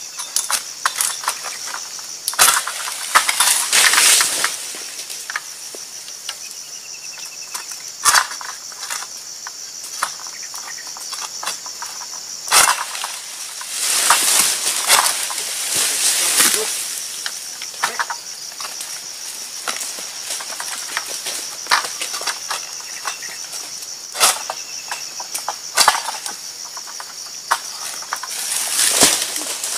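A long-pole harvesting sickle (Tiger 888 egrek) working in an oil palm's crown: several sharp snaps and bursts of leafy rustling as the blade hooks and cuts at fronds and a fruit bunch. Under it runs a steady high drone of insects.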